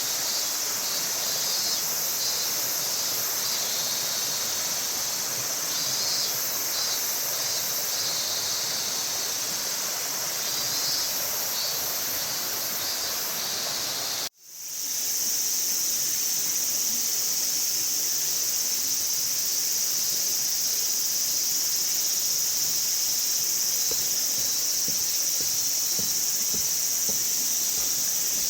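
Insects droning in a high continuous chorus, with groups of repeated chirps in the first half. About halfway the sound cuts out abruptly and fades back in.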